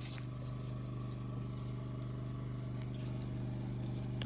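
Steady low hum, like a motor or appliance running, with a few faint light taps over it.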